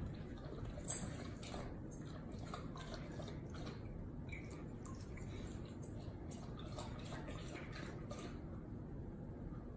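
German Shepherd pawing at and lapping water in the bowl of a gravity-fed water dispenser: faint, irregular splashes and wet clicks.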